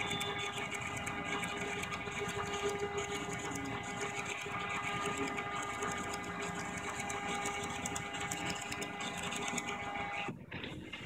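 Laundry tag printer printing: a fast, even run of ticks over a steady whine, which stops abruptly about ten seconds in.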